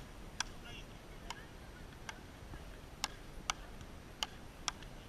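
Frescobol rally: a rubber ball struck back and forth by wooden paddles, a sharp tock with each hit, about eight hits at uneven gaps of half a second to a second.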